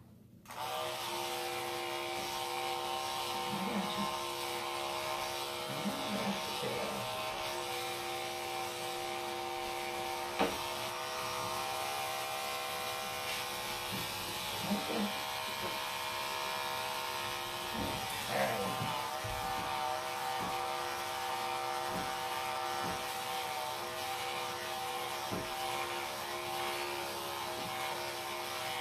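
Electric dog-grooming clippers switched on about half a second in, then running steadily while trimming a Bichon's legs.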